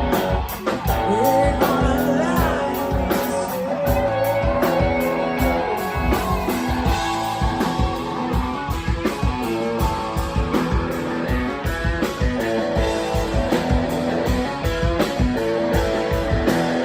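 Live blues-rock band playing, with an electric guitar line over drums and bass; the guitar bends notes in the first few seconds.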